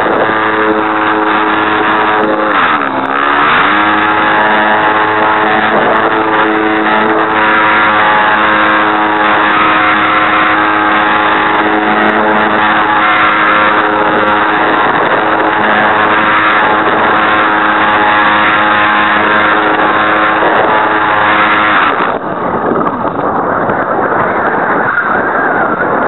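Geared electric motor of an RC Super Cub airplane whining steadily, picked up by its onboard camera. The gearbox is broken, and its vibration is what blurs the onboard camera's picture. The pitch dips and comes back up about two to three seconds in, and the whine cuts off about 22 seconds in, leaving a rushing noise.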